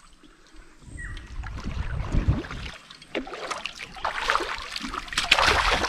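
Water splashing and sloshing beside a canoe, with scattered knocks and handling noise. The splashing grows busier and louder over the last two seconds.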